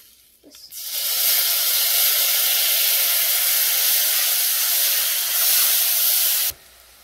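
Minced garlic sizzling in butter browned on high heat in a nonstick pot: a loud, steady hiss that starts suddenly about a second in and cuts off abruptly near the end.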